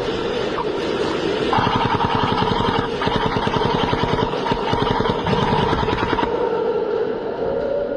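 HPA airsoft gun firing on full auto in long sustained strings, a rapid rattle of roughly twenty shots a second that eases off after about six seconds.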